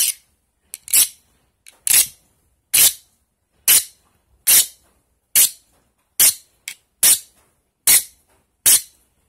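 A steel file skating in short, sharp strokes over the edge of a heat-treated, ice-water-quenched piece of M390 steel, about eleven strokes at a little over one a second. The file does not bite at all, the sign that the steel has hardened.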